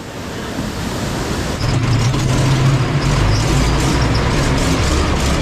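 ATV engine running under way, growing louder about a second and a half in, with a spread of rushing noise over it.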